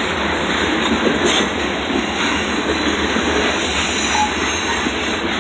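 Covered hopper cars of a CSX grain train rolling past: a steady rumble of steel wheels on rail, with a few faint clacks over rail joints.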